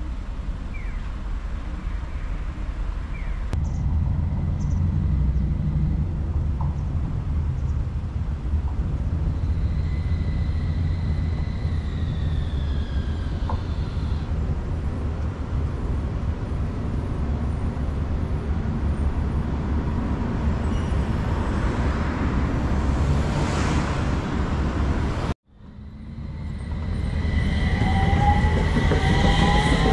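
Utsunomiya Light Line HU300-series tram running on its rails: a steady low rumble of wheels on track, with a high electric motor whine that slowly falls in pitch as it slows and a swelling rush as it comes close. After a sudden cut, a tram's motor whine rises in pitch as it pulls away.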